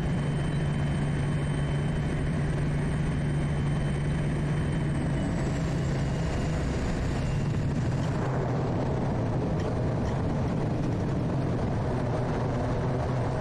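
Quest Kodiak's PT6A turboprop running steadily, a low propeller drone with a high turbine whine, through the touchdown and rollout on a wet grass airstrip. About halfway through, the engine note drops slightly, and a rougher rushing noise joins it for the last few seconds.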